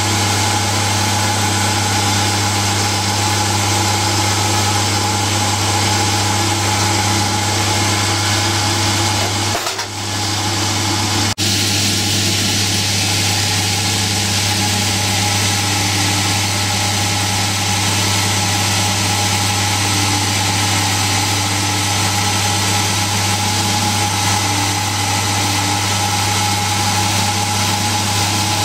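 Drill press running steadily while a spinning carbide flow drill is pressed into a hardened steel file, friction-heating it red-hot to melt a hole through. The steady hum breaks briefly about ten seconds in.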